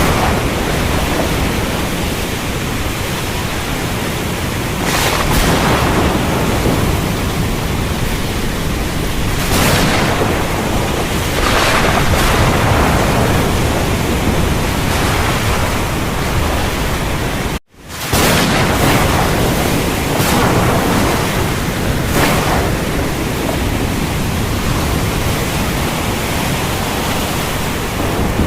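Rainstorm ambience: a dense, steady hiss of heavy rain with a deep rumble beneath, swelling every few seconds. The sound cuts out abruptly for a split second about two-thirds of the way through, then resumes.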